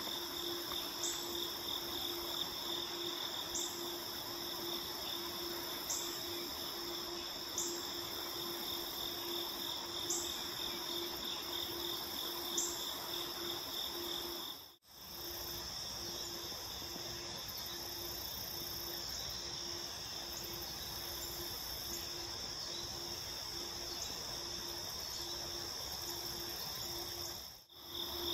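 Steady chorus of crickets chirping in a fast even pulse, with a short high chirp recurring every couple of seconds in the first half. The sound cuts out briefly halfway through and again near the end.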